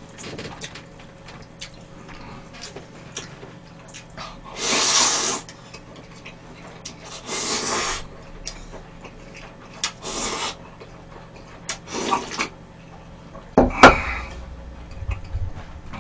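Buckwheat soba noodles and their broth slurped four times, each slurp about a second long, with small clicks of chopsticks and chewing between. Near the end comes a sharp loud knock, the loudest sound.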